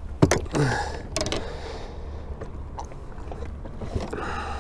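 Handling noise from a freshly caught zander being lifted and unhooked in a landing net: a few sharp clicks and knocks, the loudest about a second in, over a steady low rumble.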